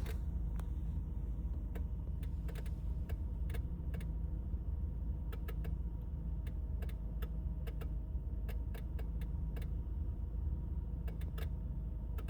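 Irregular sharp clicking from under the driver's side of a 2008 Honda Accord's dash, sometimes in quick pairs, over a steady low hum. The owner traced it to a failing multiplex integrated control unit (MICU), the fuse and relay box behind the OBD-II port, which was also knocking out the turn signals, hazards and some door locks.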